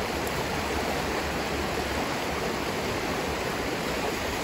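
The Manzanares river rushing over rocks: a steady, even rush of water.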